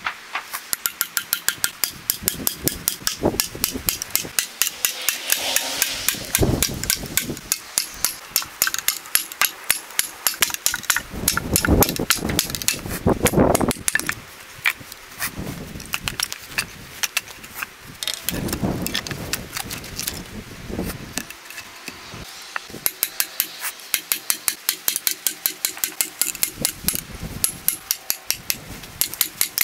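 A steel blade being struck with a hatchet to drive it into an ash log, in quick, even taps of about four a second. Around the middle come louder, longer cracking and tearing noises as the log splits apart, and the fast tapping returns near the end.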